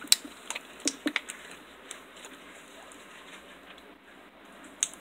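Fluffy marshmallow slime being squeezed and stretched by hand, with a few sharp clicks and pops in the first second and a half and one more near the end.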